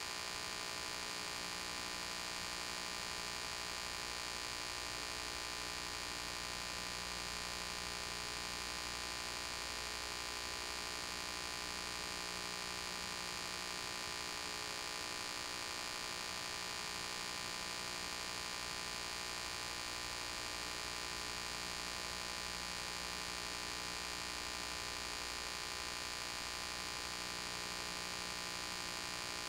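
Steady electrical hum with hiss and no other sound: the noise floor of a silent film transfer, with no game sound.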